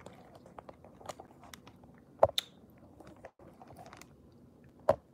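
Handling noise from the recording phone being touched and adjusted by hand: scattered small clicks and scrapes, with two sharp knocks, one about two seconds in and one near the end.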